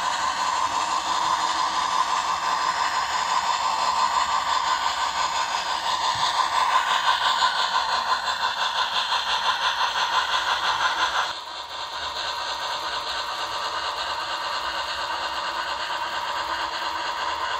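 HO scale MTH Duluth, Missabe & Iron Range Yellowstone steam locomotive model running light: a fast, steady chuffing from its onboard sound system with the rattle of its wheels on the track. The sound drops a little in loudness about eleven seconds in.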